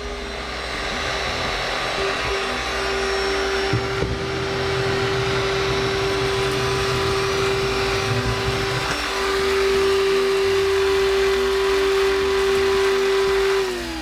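SilverCrest SHAZ 22.2 C3 cordless stick vacuum's 130 W motor running in eco mode, a steady whine with airflow hiss as the floor brush is pushed across a smooth floor. Near the end it is switched off and the whine falls away as the motor winds down.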